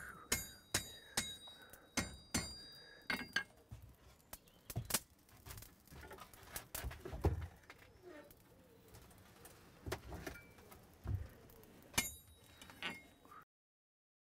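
Scattered light metallic clinks and taps, irregularly spaced, a few with a short high ring. The sound cuts off abruptly near the end.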